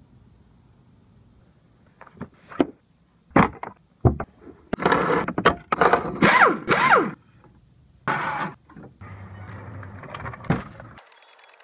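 Hand-tool and metal-part noises from work on a Honda CR-V's rear strut: sharp clicks and knocks, stretches of scraping and rattling, and a couple of short falling squeals.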